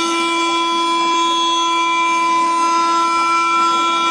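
Spindle of a Fulltek PA-3713 CNC machining center cutting solid wood with its router bit. It makes a steady whine of several held tones over the hiss of the cut.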